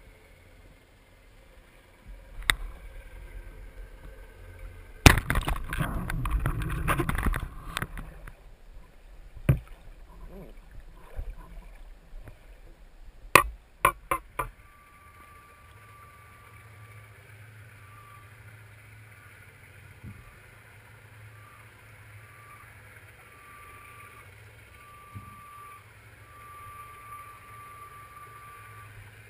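Water rushing and sloshing around an underwater camera during a spearfishing freedive, loudest for a few seconds, with a few sharp knocks on the housing or gun. It then settles into a steady low underwater hum with a faint high tone that keeps breaking on and off.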